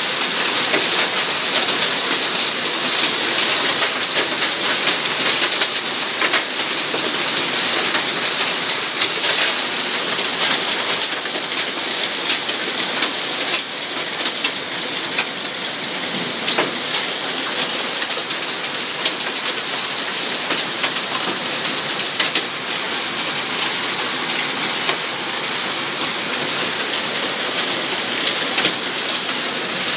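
Hailstorm: hail and heavy rain falling on a garden, a dense steady hiss with many small ticks of hailstones striking leaves, grass and paving.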